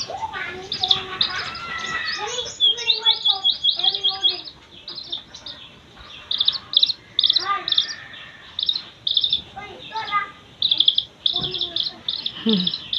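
Six-day-old chick peeping in quick runs of short, high notes, each note falling in pitch.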